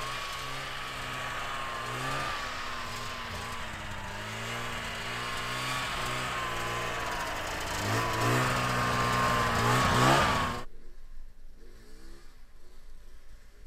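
Snowmobile engine running as the machine pushes through deep snow, its pitch wavering with the throttle, then revving higher and louder about eight seconds in before cutting off suddenly near the end.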